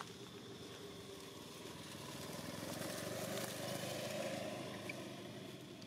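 An engine of a passing motor vehicle: it drones steadily, grows louder to a peak about halfway through, then fades.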